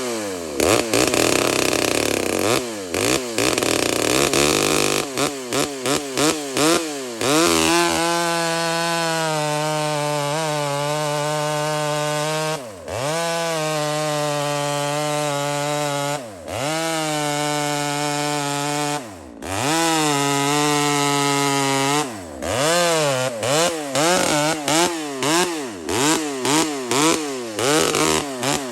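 Chainsaw engine blipped up and down rapidly, then held at high speed for several seconds at a time, dropping back briefly three times, then blipped quickly again near the end.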